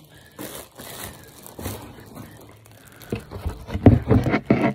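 Rustling and crinkling of handling, then a run of loud bumps and knocks on the phone microphone in the last second and a half as the phone is moved.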